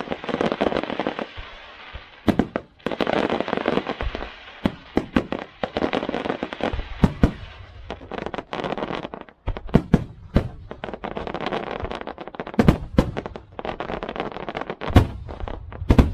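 Fireworks and firecrackers going off: stretches of dense crackling, broken by many sharp, loud bangs in irregular succession.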